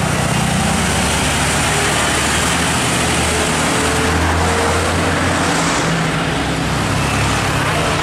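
Diesel engine of a Mercedes-Benz tour coach running steadily as it drives past close by, its low hum strongest around the middle as it passes, over tyre and traffic noise.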